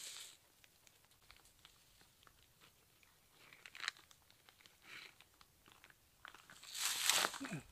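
Clear vinyl tubing, full of maple sap, rustling and crinkling as it is handled at the tree, with scattered small clicks and a louder, longer rustle about a second before the end.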